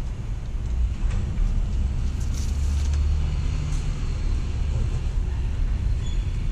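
A steady low rumble, with a few light knocks and rustles as a subwoofer is slid across the table.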